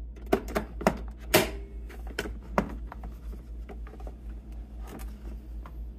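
Lid of a Nutribullet coffee brewer being opened and handled: a series of sharp plastic clicks and knocks, most of them in the first few seconds and the loudest about a second and a half in.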